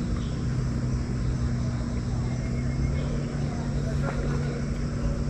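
A steady low mechanical hum at a constant pitch, over a low rumble, like a motor or engine running without change.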